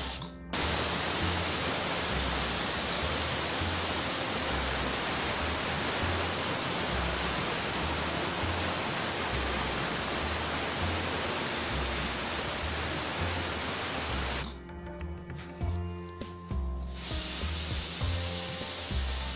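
Pressure cooker venting steam through its weighted whistle valve in a loud, steady hiss, the sign that it has come up to pressure; the hiss cuts off suddenly about 14 seconds in. Background music with a steady low beat plays underneath.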